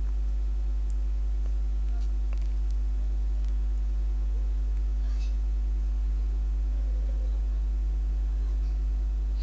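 Steady low electrical hum with a few fainter steady tones above it, with a few faint clicks in the first few seconds.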